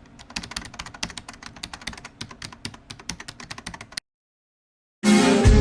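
Fireworks crackling: a dense, irregular run of small sharp pops and snaps for about four seconds, cutting off abruptly. Music starts near the end.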